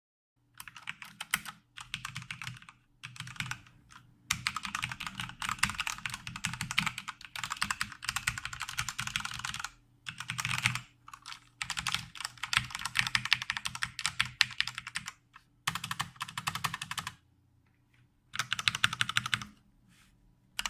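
Gigabyte Aorus K7 mechanical keyboard with Cherry MX Red switches being typed on quickly, fast clattering keystrokes in bursts of a few seconds with short pauses between them.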